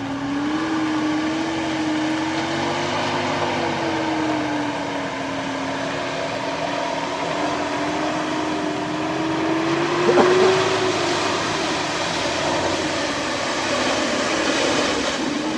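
Off-road 4x4's engine running under changing throttle, its note rising and falling as it drives. About ten seconds in there is a sharp knock, and after it water splashes and hisses as the vehicle ploughs into a muddy pond.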